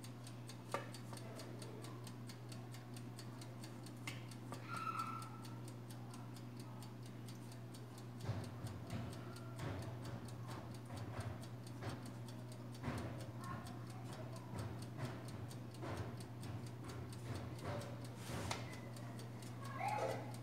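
Steady, evenly spaced ticking over a low, even hum, with irregular soft knocks and clinks from about eight seconds in.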